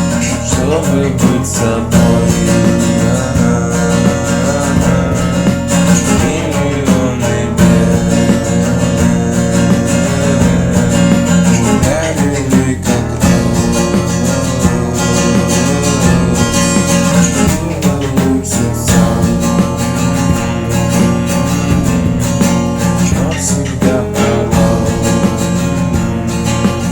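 Instrumental stretch of a song, with guitar prominent over a steady repeating bass line.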